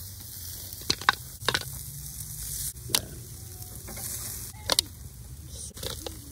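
Steaks and chicken sizzling on a charcoal grill, a steady hiss, with several sharp clicks of metal tongs against the grill grate as the steaks are lifted off.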